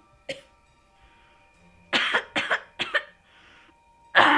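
A woman sobbing in short, gasping bursts over soft, sustained background music: a run of sobs about two seconds in and a louder one near the end.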